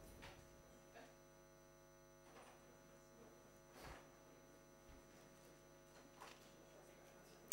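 Near silence: a low, steady electrical hum, with a few faint knocks and rustles.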